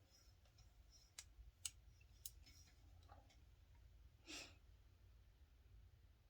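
Mostly near silence, with three faint sharp clicks in the first two and a half seconds and a short breathy exhale a little past four seconds in.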